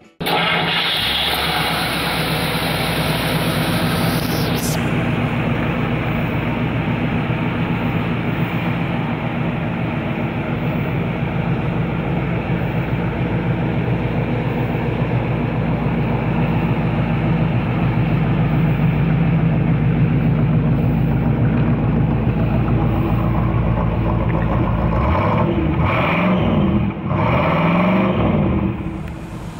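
1953 Oldsmobile Super 88's 303 cubic inch V8 idling steadily through its exhaust, then revved and let fall back a couple of times near the end.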